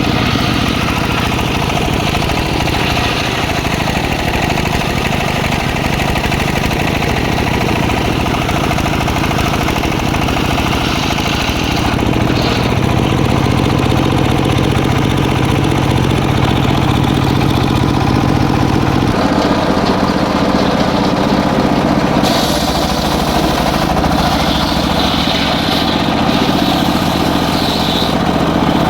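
Engine-driven circular sawmill running steadily while ripping teak, its note shifting a few times as the load changes, with a higher whine coming and going near the end.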